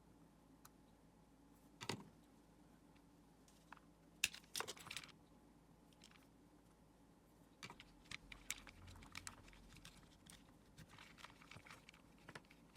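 Faint clicks, taps and light rattles of small hard objects being handled. There is one sharper click about two seconds in, a clatter around four to five seconds, and a run of lighter clicks through the second half.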